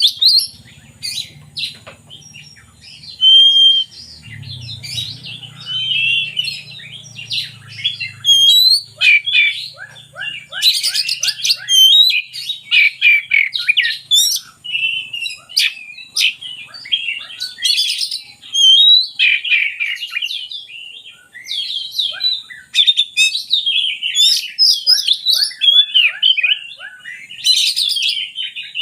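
Oriental magpie-robin (kacer) singing continuously: a rich, varied song of rapid whistled notes, quick note series and harsh chattering calls, broken by short pauses.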